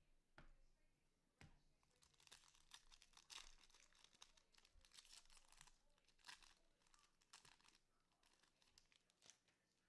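Faint crinkling and tearing of a trading-card pack wrapper being opened and handled, with a couple of sharp clicks about half a second and a second and a half in.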